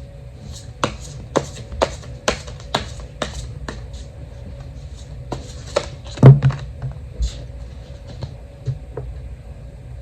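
Tarot cards being handled on a table: a run of sharp taps and clicks about two a second, then scattered clicks and one louder thump about six seconds in.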